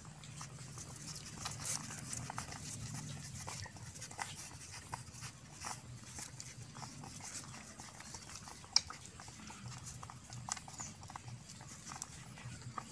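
Puppies suckling at their standing mother dog: many small, irregular wet smacks and clicks, with one sharper click nearly nine seconds in.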